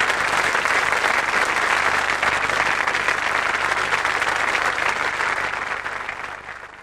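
Large studio audience applauding, a dense continuous clapping that fades out near the end.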